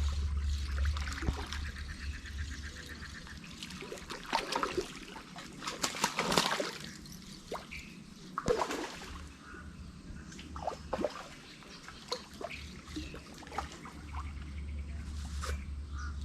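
Water splashing and trickling in irregular bursts as a small hooked carp is brought in from the river.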